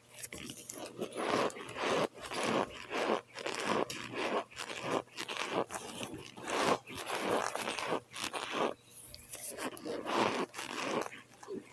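Close-up biting and chewing of cold boiled cornstarch chunks: an irregular run of short, dense crunches.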